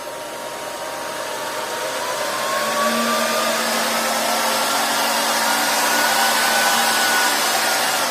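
Portable PCP high-pressure air compressor running on a test after reassembly, a steady motor and fan noise with a whine that rises slowly in pitch as it grows louder. A lower hum joins about two and a half seconds in, and the sound eases off near the end.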